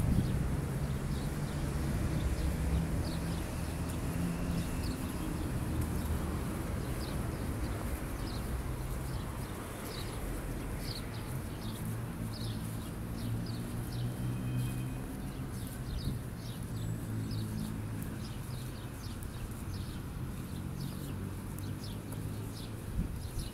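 City street ambience: the low hum of vehicle engines, swelling in the middle, with many short, high chirps of small birds scattered through.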